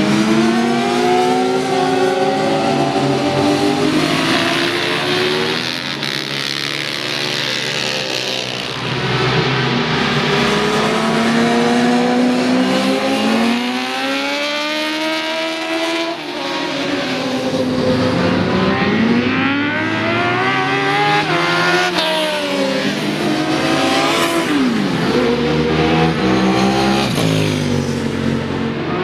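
Several open-exhaust supersport motorcycles passing one after another at full throttle. Each engine's pitch climbs as the bike accelerates and drops as it goes by, and the bikes often overlap.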